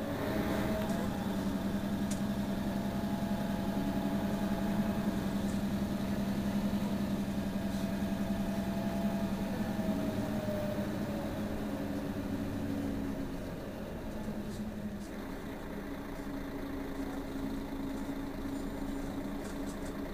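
Mercedes-Benz Citaro Facelift city bus engine idling at a standstill: a steady low hum with a faint higher whine that slides down and fades about eleven seconds in. The idle gets slightly quieter a couple of seconds later.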